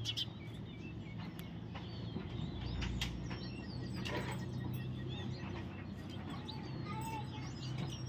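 Parrots chirping and calling, with many short, sharp calls and twitters scattered throughout, over a steady low hum.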